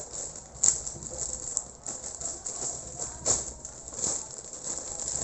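Plastic packaging being handled and opened to take out a face mask: a steady crinkling rustle broken by a few sharp crackles.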